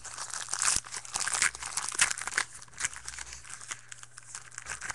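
Plastic wrapper of a baseball card pack being torn open and crinkled by hand, dense irregular crackling that thins out over the last couple of seconds.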